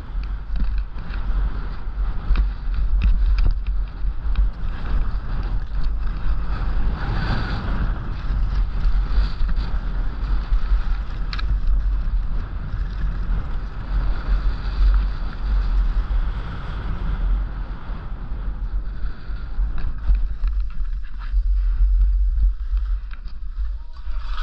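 Wind buffeting the microphone during a downhill ski run, a steady rumbling rush, with the skis hissing and scraping over packed snow.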